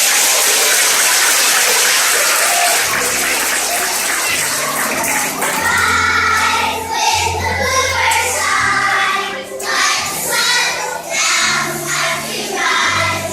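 A steady rushing noise fills the first few seconds, then music with a bass line and singing starts about three seconds in and carries on.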